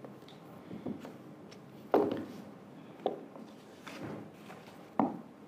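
Soft knocks and thuds in a quiet room, about one a second, with the loudest about two seconds in and again near the end.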